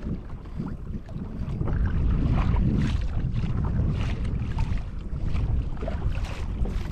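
Sea water splashing and rushing against the hull of a moving fishing kayak over a steady low rumble, growing louder about two seconds in.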